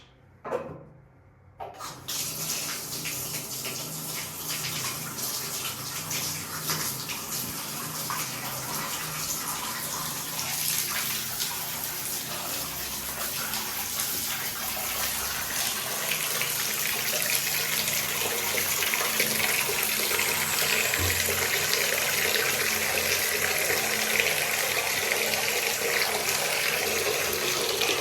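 A tap running into a bathtub, filling it. The water is turned on suddenly just under two seconds in, after a couple of short knocks, and runs steadily, getting a little louder as it goes.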